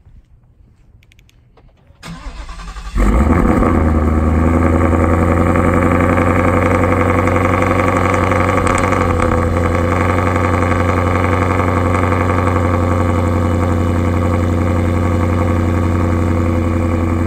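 Twin-turbo 2018 Mustang GT's built 5.0 Coyote V8 cold-started: the starter cranks for about a second, then the engine catches about three seconds in and settles into a steady idle.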